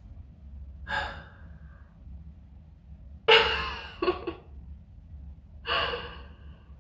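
A woman's breathy gasps and sighs of reaction, three short bursts with her hand over her mouth, the loudest a little past the middle.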